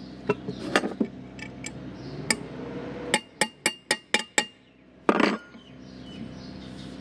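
Small hammer tapping a steel Allen key seated in a valve-plate bolt on a Copeland compressor: a few scattered metal clicks, then a quick run of about six ringing taps around three to four seconds in, followed by a short scraping rattle just after five seconds.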